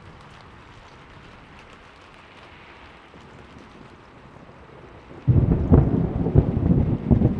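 Steady rain falling, then about five seconds in a clap of thunder breaks in suddenly and rumbles loud and low, crackling, over the rain.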